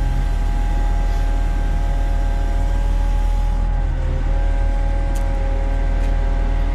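Truck-mounted knuckle-boom crane running as it lowers a heavy load: a steady low engine drone with a steady whine from the crane's hydraulics. The whine dips briefly in pitch about four seconds in.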